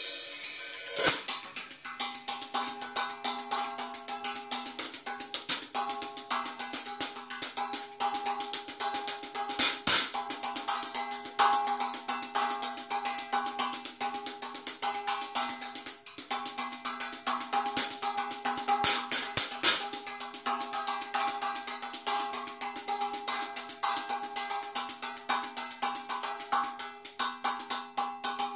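Drum kit and Chinese gong played freeform in a dense, fast rhythm on drums and cymbals. A hard stroke about a second in sets off a steady ringing of several tones, typical of the gong's sustain, which carries on under the drumming, with a few heavier accents along the way.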